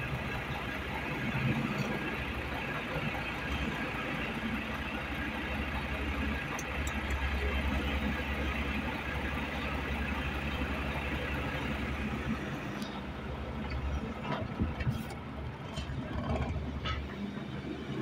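Diesel engines of an excavator and a backhoe loader running steadily in a low drone, with a few short knocks in the last few seconds.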